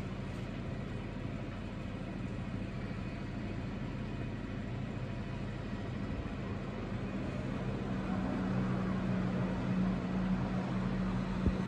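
A steady mechanical hum with a low drone and a rushing noise, growing louder over the last few seconds.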